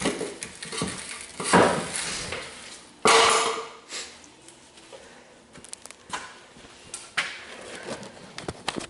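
Metal clanking and knocks from work on a skid steer's steel over-the-tire track as it is shortened. Two loud clanks come about one and a half and three seconds in, the second ringing briefly, followed by lighter taps and clicks.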